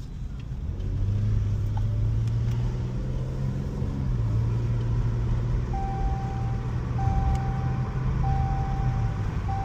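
Jeep engine pulling under acceleration on a test drive, heard from inside the cab, its note stepping up about a second in and again about four seconds in. From about halfway through, a single-pitch electronic beep repeats roughly once a second.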